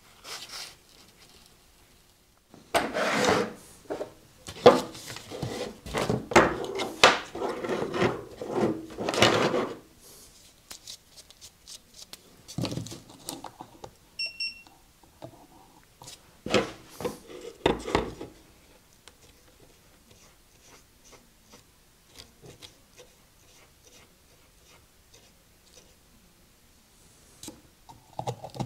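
Rough rubbing strokes, about two a second for several seconds, as the end of a flat drive belt is filed or sanded down into a tapered skive for its joint. A few knocks and light clicks of hand tools and the belt being handled follow.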